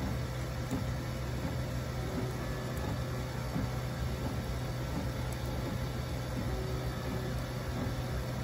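Prusa Mini FDM 3D printer running a print, its fans and stepper motors giving a steady hum with a few faint steady whines above it. The print is at its first layers.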